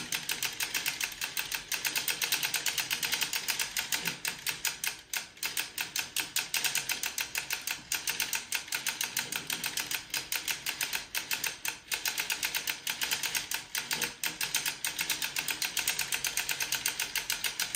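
Hand-cranked Dean and Bean 3D-printed sock knitting machine running, its needles clacking up and down in a rapid, even clatter as the cam ring is turned to knit a tube. It is really loud, with a few brief hitches in the rhythm.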